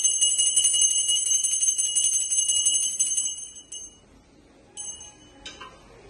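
Small puja hand bell (ghanti) rung rapidly and continuously with a clear, high ring. The ringing stops a little past halfway, followed by two single strokes and a click.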